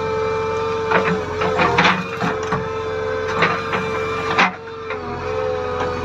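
JCB 3DX backhoe loader working, heard from the cab: its engine and hydraulics run with a steady whine while the bucket digs out tree roots, with several sharp knocks and cracks through it.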